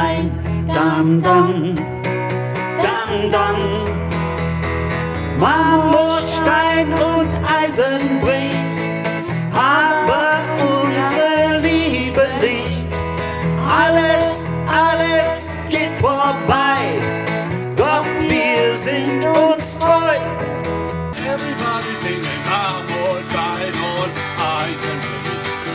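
Singing with an acoustic guitar. About 21 seconds in the sound changes abruptly to another recording of a man singing and playing acoustic guitar.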